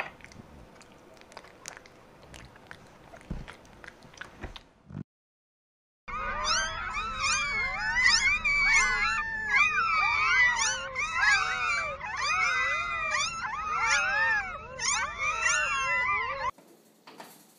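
A litter of newborn puppies squeaking and whining together, many thin high cries overlapping and bending up and down in pitch. Before them comes a few seconds of soft clicking and chewing sounds. The cries start after a moment of silence about six seconds in and stop suddenly near the end.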